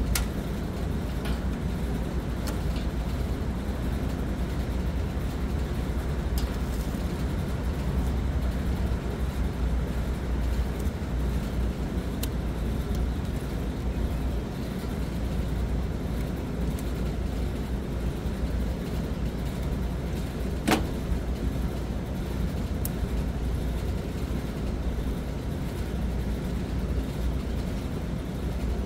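A steady low rumble runs throughout, with scattered light clicks from wires and terminals being handled in an electrical control panel. One sharper click comes about 21 seconds in.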